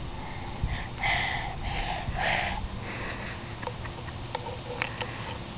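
Four or five short, breathy puffs of someone blowing, then a few light clicks near the end.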